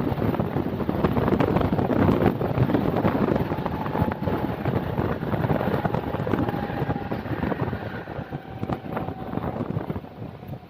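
Mumbai suburban local train running at speed: a steady rumble and rattle of wheels on rails with wind rushing against the microphone, a faint thin squeal in the middle, and easing off a little near the end.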